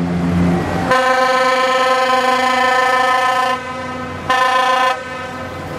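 Ship's horns of two different pitches: a deep horn ends about a second in, then a higher horn sounds one long blast of nearly three seconds followed by one short blast, as passing vessels exchange signals.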